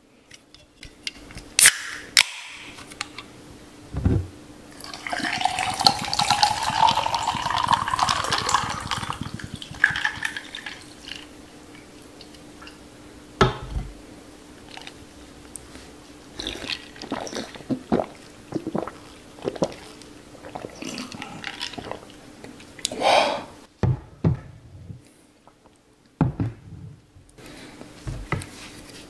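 A can of Sunkist Shine on the Beach cracked open with a sharp click, then poured over ice into a glass for several seconds, the pitch of the pour rising as the glass fills. Scattered clicks and sips follow as it is drunk.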